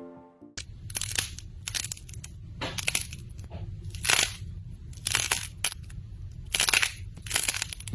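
Crunchy slime being pressed and squeezed by hand, giving irregular crunches and crackles a few times a second.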